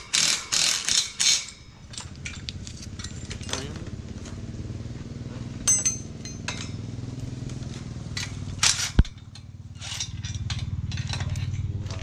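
Cordless drill driving a bolt into a steel tiller frame in several short bursts over the first second and a half. After that comes a steady low drone, with one sharp click about nine seconds in.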